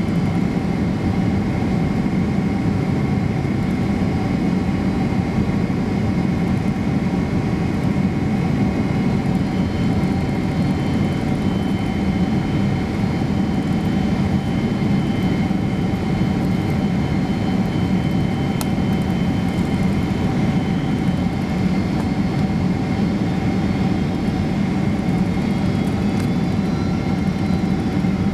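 Cabin noise inside a Boeing 767-300 airliner on final approach: a steady roar of the engines and airflow, with several steady whining tones from the engines over it.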